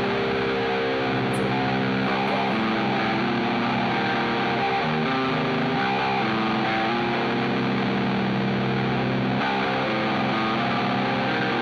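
Rock band playing live: distorted electric guitars and electric bass over a drum kit, a dense, steady wall of sound.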